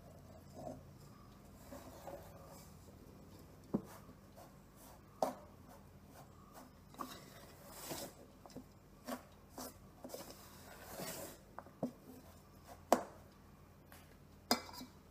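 A spoon mixing wheat-flour dough in an enamel bowl: irregular knocks and clicks of the spoon against the bowl, with a couple of longer scrapes along its side.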